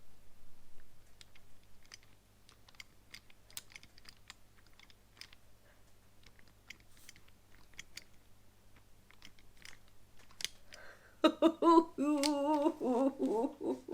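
Light, scattered clicks and taps of small hard items being handled. Near the end comes a drawn-out, wavering vocal exclamation, the loudest sound.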